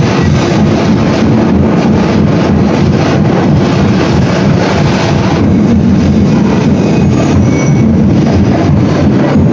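Loud, overdriven festival percussion drumming, a dense steady beat with repeated drum strikes heavy in the low end.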